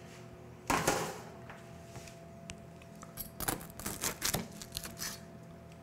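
A knife cutting through a loaf of broiled garlic bread, the toasted crust crunching in a few short crackles from about three and a half seconds in. A single clatter comes about a second in.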